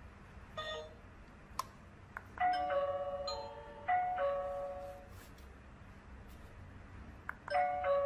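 A GazingSure wireless doorbell's plug-in indoor chime plays its ding-dong melody of several ringing notes when the doorbell button is pressed, showing that the chime is paired. A short beep comes about half a second in, the chime sounds about two and a half seconds in, and it sounds again near the end.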